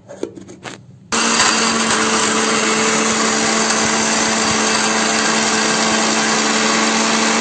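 Electric mixer grinder switched on about a second in, its motor running at steady high speed with a constant hum while grinding dried ginger (sonth) into powder. A few light clicks come just before it starts.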